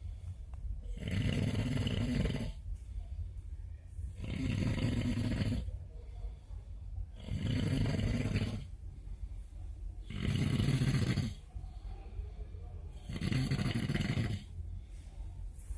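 A man snoring heavily, five loud snores about three seconds apart with quieter breaths between them.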